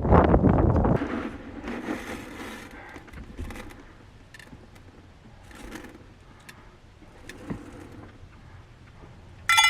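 Scraping and handling noises, loudest in the first second, followed by softer scrapes and scattered sharp clicks. A ringing musical tone starts just before the end.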